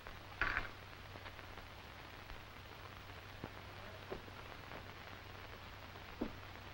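Hiss and low hum of an old 1940s film soundtrack, with a short scuff about half a second in and a few faint knocks spread through the rest.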